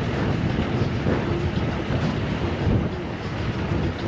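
Jeep driving over a rough track, its engine running under an irregular rattle of the body and metal roof rack as it goes over the bumps.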